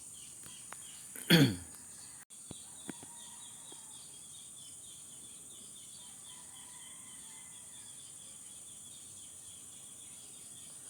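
Ambient insect drone with rows of small repeated chirps from insects or birds. About a second in, one short, loud sound sweeps down steeply in pitch.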